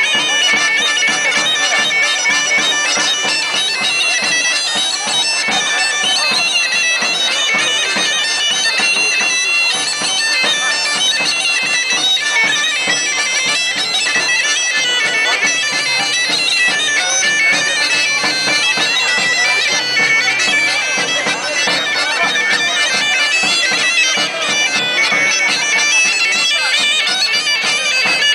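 Thracian gaida (goatskin bagpipe) playing a dance tune live without a break, with a large double-headed drum (daouli) accompanying it.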